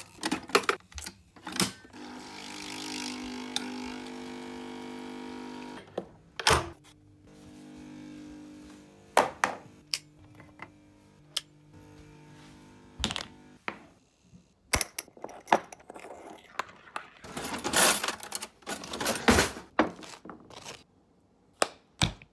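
Kitchen breakfast-making sounds: sharp clicks as an appliance dial is turned, then a steady appliance hum for about four seconds. Scattered knocks and clunks follow, with a knife scraping butter across toast near the end.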